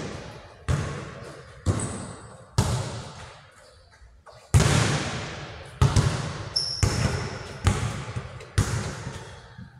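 Basketball bouncing on a gym court, about eight bounces roughly a second apart with a pause of about two seconds near the middle, each bounce echoing in the large hall.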